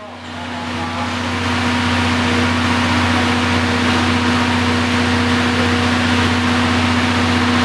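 DD51 diesel-hydraulic locomotive idling: a steady, loud engine drone with a constant low hum and hiss, fading in over the first second or so.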